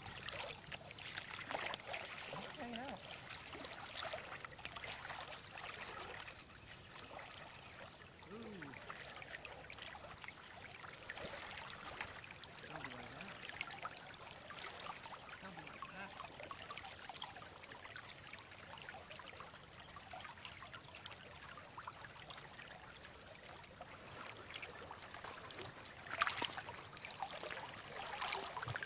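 Shallow river current babbling and rippling around a wading angler's legs, a steady water noise. Near the end there is a brief, sharper, louder sound.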